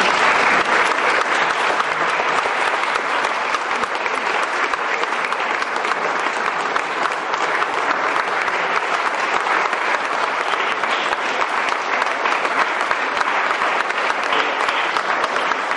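A congregation applauding, a steady clatter of many hands clapping.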